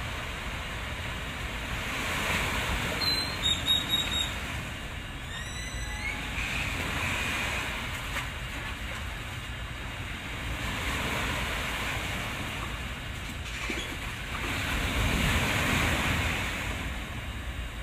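Waves washing and wind on the microphone, swelling louder and softer. A brief run of bird chirps comes about three seconds in, followed by a few rising whistles.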